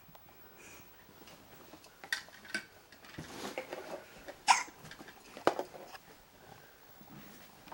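Hiccups: several short, sharp hiccups, about four, the loudest near the middle.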